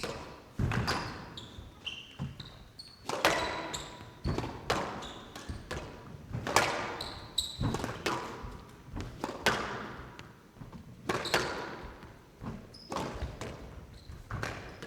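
Squash rally: the ball is struck by rackets and smacks off the court walls about once a second, each hit a sharp crack ringing briefly in the glass court. Court shoes give short high squeaks on the floor between shots.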